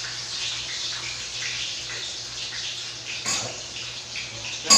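Water running steadily from a kitchen tap into a stainless-steel sink, with a brief knock about three seconds in and a sharp, ringing metallic clang at the very end.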